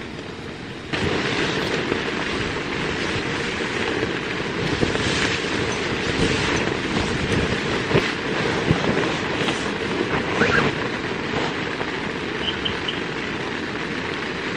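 Heavy rain falling as a steady, dense noise with scattered sharper drop hits. It gets suddenly louder about a second in.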